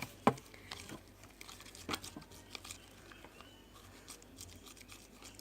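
A small spoon clicking and scraping in a bowl while stirring slime mixture: a sharp click about a third of a second in, another near two seconds, then scattered faint ticks and crinkly handling noise.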